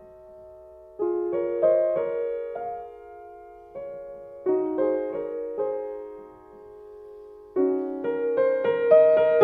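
Slow solo piano music: chords struck every few seconds and left to ring out, growing busier near the end.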